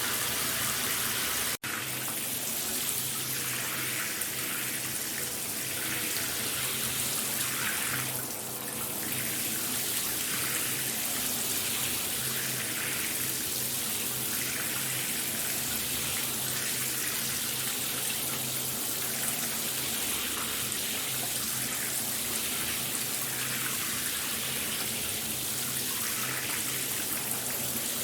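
Shower running: a steady spray of water hissing and splashing, cutting out for an instant about one and a half seconds in.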